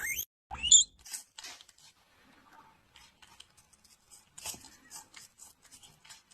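A small animal's short rising squeaks, two near the start, then faint scattered clicks and scratches.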